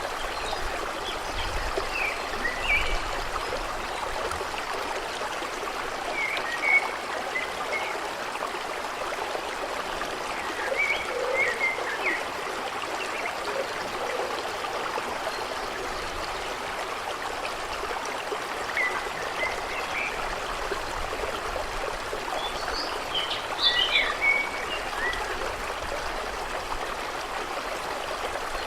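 A stream running steadily over rocks, with small birds giving short chirps every few seconds, most of them about twenty-three seconds in.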